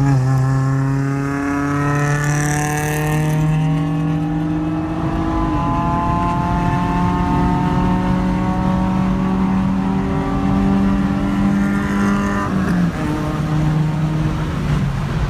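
Car engine pulling hard under acceleration during a highway roll race, heard from inside the car. Its pitch climbs slowly, broken by a few sudden steps.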